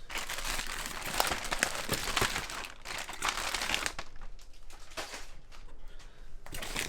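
Packaging crinkling and rustling as it is handled, a dense patter of small crackles that is strongest for the first few seconds, eases off, and picks up again near the end.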